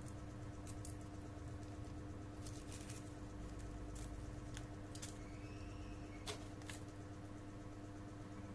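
Scattered light clicks and taps from handling small objects, the sharpest about six seconds in, over a steady low electrical hum.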